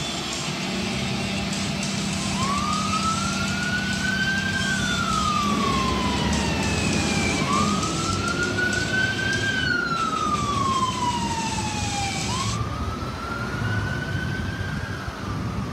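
Emergency vehicle siren in wail mode: three slow cycles about five seconds apart, each rising quickly and then falling away slowly. A steady low hum runs under the first two cycles.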